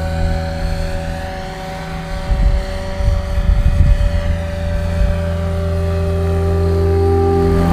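XL Power XL550 electric RC helicopter's rotor and motor whirring steadily in flight, the pitch wavering slightly as it manoeuvres. Irregular low rumbling comes in from about two to five seconds in.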